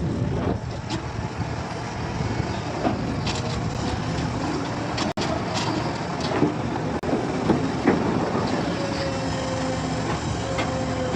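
Heavy machinery running: a steady engine noise with scattered knocks and clanks. It cuts out for an instant about five seconds in.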